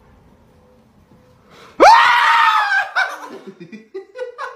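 Near quiet for almost two seconds, then a sudden loud, high-pitched scream that shoots up in pitch and holds for about a second, breaking into laughter.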